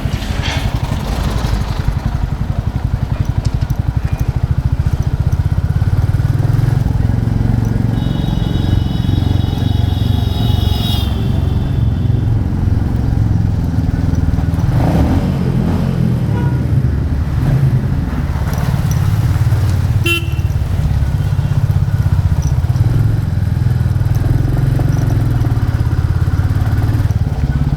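Royal Enfield Classic 350's single-cylinder engine running steadily under way, with its low, even thump. A vehicle horn sounds for about three seconds roughly a third of the way in.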